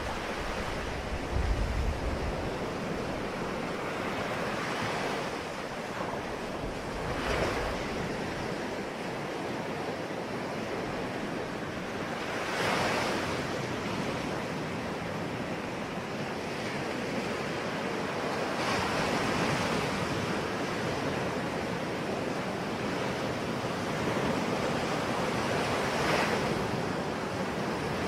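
Ocean waves washing onto a shore: a steady surf hiss that swells as a wave breaks every few seconds, about five times, with a low rumble of wind on the microphone near the start.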